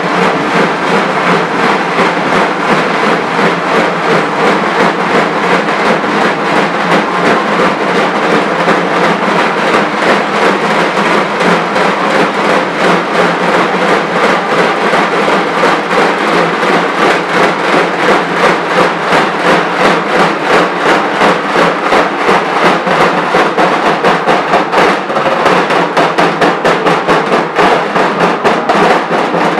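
Street band of barrel drums (dhols) beating a fast, steady rhythm, loud and dense.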